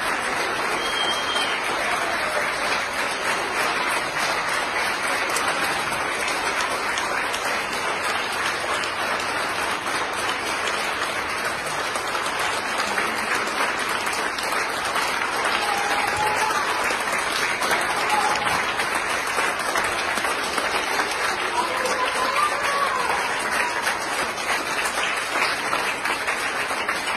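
A crowd of hospital staff applauding steadily, many hands clapping in one long, continuous ovation.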